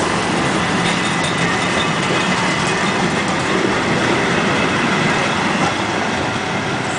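Vintage Dutch 'Blokkendoos' electric train (NS mat '24) pulling away and passing close by, its carriages' wheels running on the rails in a steady, dense rumble that eases a little near the end.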